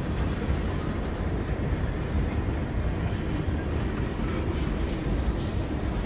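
Freight train tank cars rolling past close by: a steady, low rumble of steel wheels on the rails.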